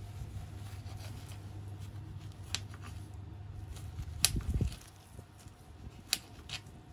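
Small knife slicing strawberries on a glass cutting board, with a few sharp clicks as the blade meets the glass, about one every couple of seconds. A low steady hum underneath stops about two-thirds of the way through.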